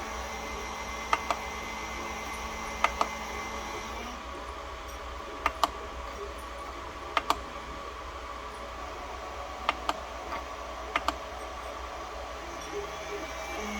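Creality Ender 3 3D printer buzzing: a steady hum with several held tones above it. A low tone drops out about four seconds in. Six pairs of sharp clicks come every second and a half to two and a half seconds.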